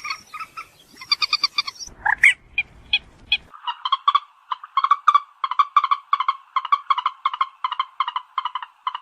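Mandar batu (common moorhen) lure calls: rapid stuttering notes at first, a short rising squawk about two seconds in, then a steady series of clipped calls about three to four a second.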